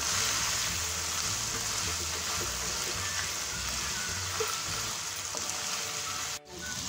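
Chickpeas frying and sizzling in sauce in a nonstick pan while being stirred with a spatula. The sound drops out for a moment near the end.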